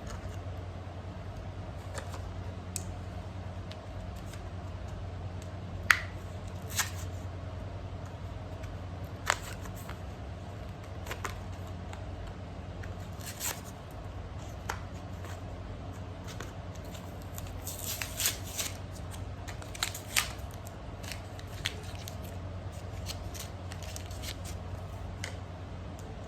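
Hands handling the light stick and its packaging: scattered sharp clicks and short scrapes and rustles, a cluster of them around two-thirds of the way through, over a steady low hum.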